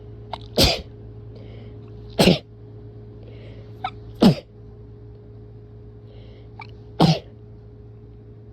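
A person sneezing hard four times, a second or two apart, most sneezes preceded by a quick gasping in-breath; the sneezes of someone who is sick.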